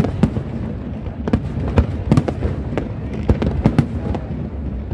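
Aerial fireworks shells bursting in a display: a dozen or so sharp bangs at irregular intervals, sometimes several in a second, over a continuous low rumble.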